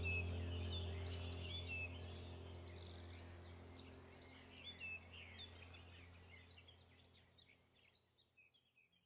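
Background ambience track of many small birds chirping over a low steady drone, the whole bed fading out gradually to near silence.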